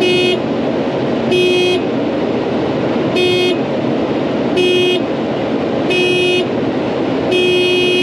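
Combine horn honking in six short blasts about every one and a half seconds, the last one held longer, over the steady noise of the running combine heard inside the cab.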